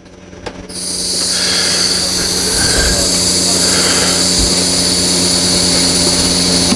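Air hissing out of a scooter's rear tire through the valve as the tire is deflated: a loud, steady high hiss that starts about a second in.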